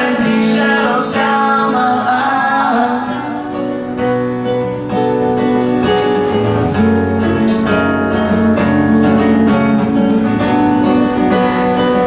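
Two acoustic guitars strummed together, with a man and a woman singing over them; the voices stop about three seconds in and the guitars carry on alone in an instrumental passage.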